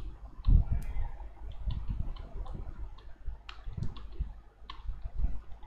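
Light, scattered clicks of computer keys and mouse buttons, about a dozen spread irregularly, with a low thump about half a second in.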